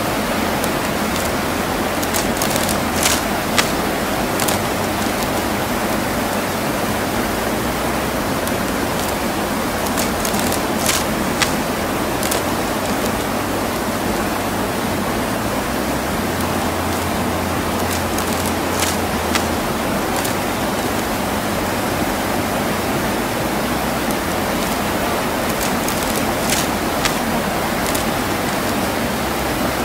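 A rainforest stream rushing over rocks: a steady wash of running water, with a few brief sharp clicks now and then.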